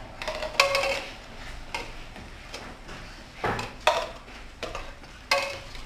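Plastic cups being set down and knocked onto a tiled game board on a table: sharp clacks at uneven intervals, about eight in all.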